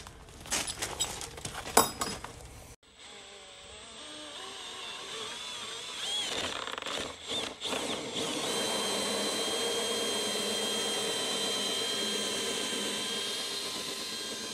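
Cordless drill spinning a hole saw through vinyl siding into the house wall, enlarging a pilot hole. A few knocks come first. Then the motor whine rises, stops briefly twice around seven seconds in, and runs steadily as the saw cuts.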